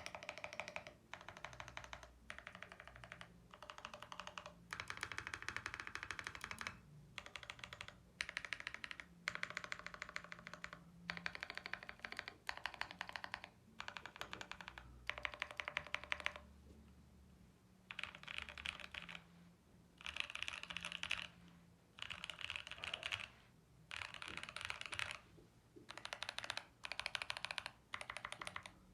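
Typing on a Mode Eighty mechanical keyboard with lubed Gazzew U4T Boba 68g tactile switches, a POM plate and PBT keycaps: fast runs of deep, thocky keystrokes in bursts, with short pauses between them and a longer pause a little past halfway.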